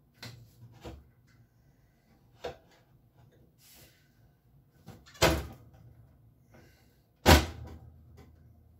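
Metal clicks and clunks from a built-in oven's door hinges as the open door is handled, with two loud knocks about five and seven seconds in.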